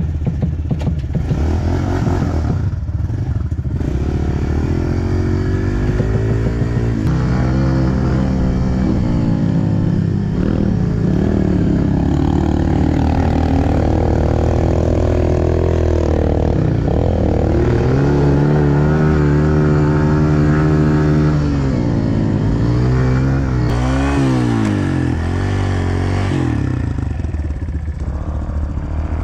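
Pit bike engine revving as the bike is ridden, its pitch climbing and falling again and again, with a quick drop and climb near the end.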